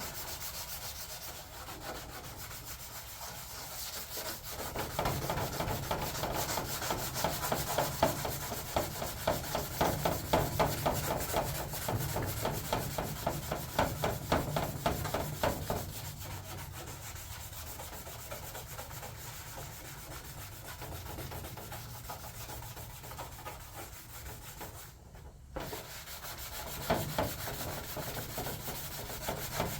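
Rubbing by hand over a decal on an aluminum race-car door panel with Prep Sol solvent, scrubbing off tire-burn marks. Quick back-and-forth strokes grow louder and faster after about five seconds, then ease to a softer rub over the second half.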